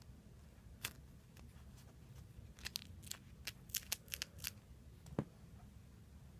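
Faint handling noise as squishy toys and their packaging are picked up and set down: scattered crisp crackles and clicks, thickest in the middle, and a light knock about five seconds in.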